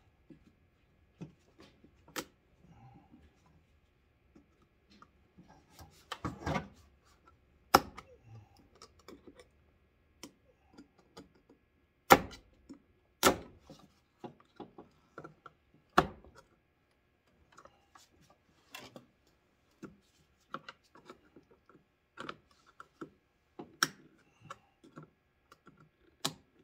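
Irregular clicks and taps with a few sharp knocks: a flathead screwdriver and hands working small metal keeper washers onto a new windshield washer pump's plastic housing.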